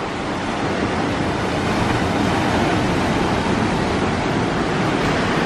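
Ocean surf as a steady rushing wash of water, growing a little louder about a second in.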